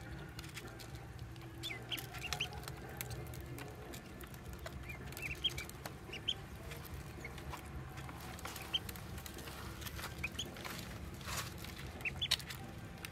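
Ducklings peeping in short, high, scattered chirps while their bills click and tap against the feed dish as they eat, over a steady low hum.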